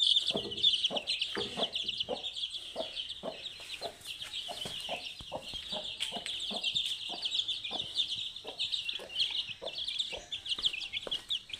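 Chicks peeping in a dense stream of high cheeps over a mother hen's low clucking, about two clucks a second.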